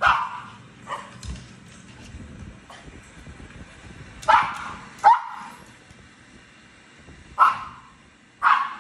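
Small dog barking: five sharp, high barks, one right at the start, a pair about four to five seconds in and another pair near the end, with two fainter yips about a second in.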